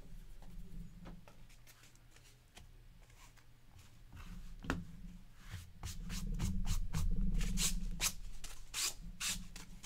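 Hands handling wrapped trading-card packs and a foam box insert on a table mat: soft rubbing and shuffling, growing louder about halfway through into a run of quick crinkles and clicks.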